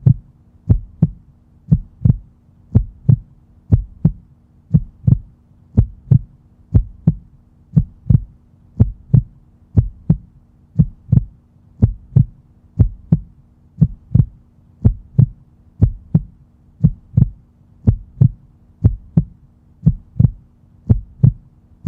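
Heartbeat: steady lub-dub double thumps, about one beat a second, with a faint low hum beneath.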